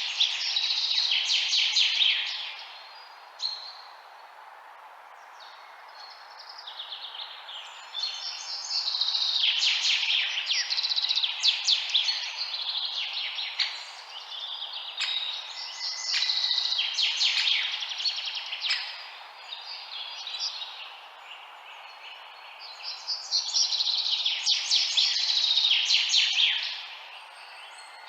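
Birds chirping in rapid, high twittering bouts of a few seconds each, with short lulls between them, over a steady background hiss.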